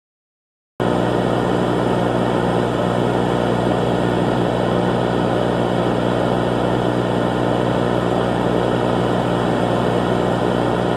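A loud, steady, unchanging drone-like noise cuts in suddenly about a second in and holds without variation.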